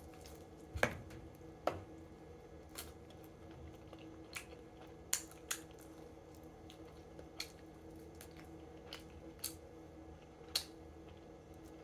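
Close-up eating of Buffalo wings: irregular wet mouth smacks and clicks of chewing, about a dozen over the stretch, the loudest about a second in, over a faint steady hum.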